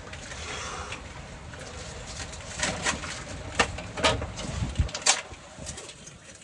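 Metal tools clinking and knocking against metal a handful of times, at irregular intervals, over a steady hiss of rain.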